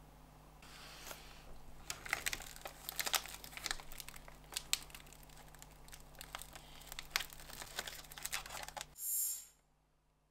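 Plastic snack wrapper crinkling and crackling in gloved hands as it is handled, in irregular bursts. About nine seconds in there is a brief loud rush of hissing noise, then it goes quiet.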